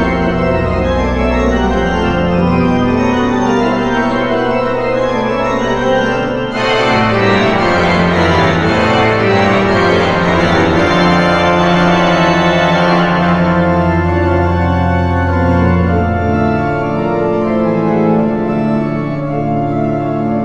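Walcker pipe organ playing a toccata: fast triplet figures in both hands over long-held pedal bass notes. About six seconds in the sound turns suddenly brighter and fuller.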